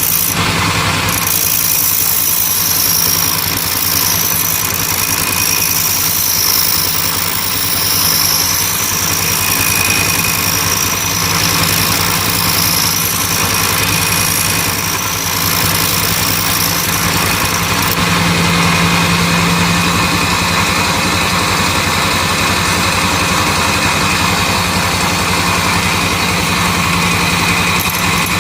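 Bench grinder motor running steadily with a blender blade held against the grinding wheel, a continuous high grinding hiss over the motor's hum that fills in about a second in. The blade's flat edge is being ground down to put a cutting edge on it.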